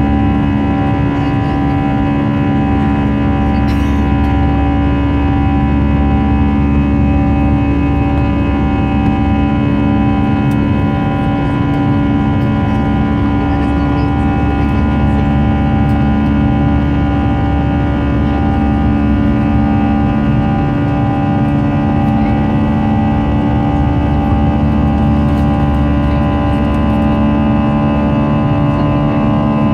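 Airbus A321 jet engines droning steadily in the passenger cabin during the climb after takeoff: a loud low rumble with several steady tones above it, one low tone slowly swelling and fading every few seconds.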